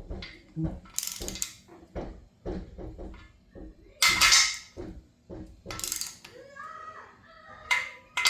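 Ratchet-style torque wrench tightening the main bearing cap stud nuts on an LS engine block to 60 ft-lb. It makes a run of ratchet clicks and sharp metallic clicks, louder ones about a second in, at four seconds and at six seconds.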